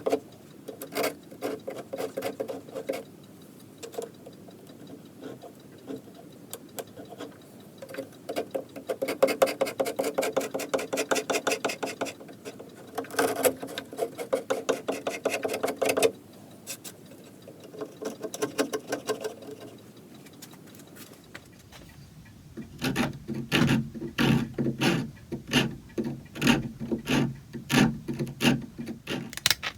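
Hand tool scraping or rasping on wood in quick back-and-forth strokes, several a second, in bursts of a few seconds with short pauses between; the last, longer burst sounds fuller and lower.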